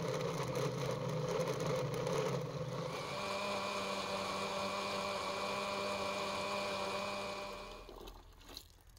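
Electric countertop blender's motor running steadily as it blends watermelon rind chunks with water into a smooth liquid; its tone shifts about three seconds in, and the motor stops near the end.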